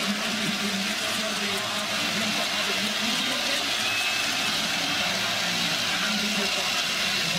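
Large stadium crowd cheering in a steady wash of noise.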